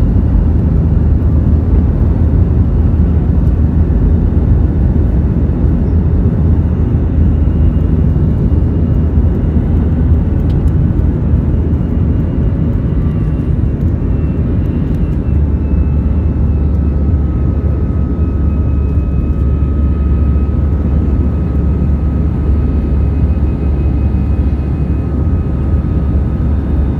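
Jet engines and airflow of an Airbus A320-200 during take-off, heard from inside the passenger cabin as a loud, steady low rumble. The low hum changes pitch about halfway through.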